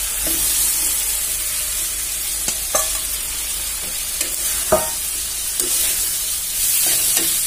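Fried carrot and potato pieces sizzling in spice paste in a metal karahi as a metal spatula stirs them, with a few clinks of the spatula on the pan, the sharpest about halfway through.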